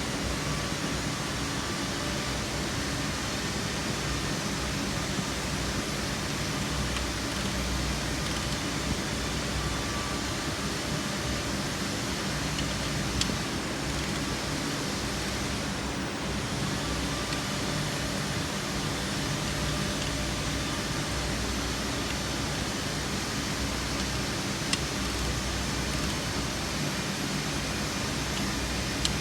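Steady background hiss and low hum, with a few faint clicks.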